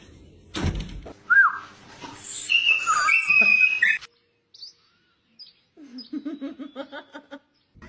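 A bird chirping and giving sliding, whistle-like calls, then after a short pause a fast run of short calls, about five a second. A brief noisy thump comes just before the calls begin.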